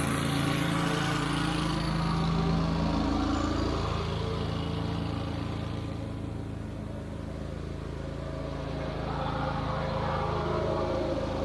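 Wright Stander stand-on mower's engine running steadily on its replacement carburetor, staying running rather than dying. It eases off a little about halfway through and comes back up near the end.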